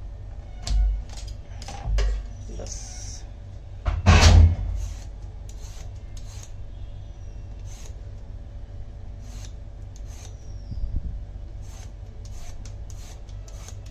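Vegetable peeler scraping the skin off a bottle gourd in repeated short strokes, with a few dull thumps as it is handled, the loudest about four seconds in.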